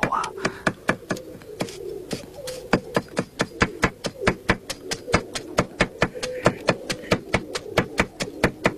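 Kitchen knife chopping rapidly on a wooden cutting board, about five strokes a second in a slightly uneven rhythm.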